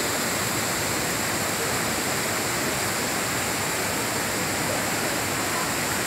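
Tall waterfall plunging down a rock cliff into a boulder-filled pool: a steady, unbroken rush of falling water.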